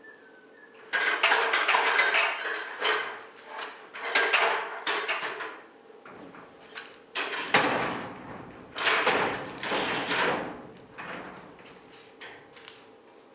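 A ladder being moved and set up: several bouts of clattering, scraping and knocking, with quieter gaps between them.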